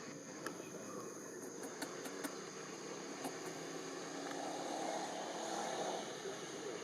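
Outdoor ambience with a steady high insect drone, with a few faint clicks in the first half and a slightly louder low hum swelling for a couple of seconds after the middle.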